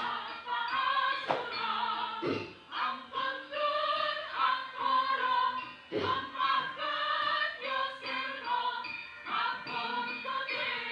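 Javanese gamelan music with sung voices, dense sustained metallophone tones under the singing, and occasional sharp drum or knock strikes.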